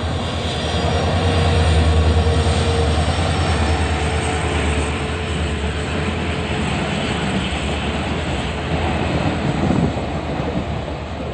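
A train running past with a steady low rumble.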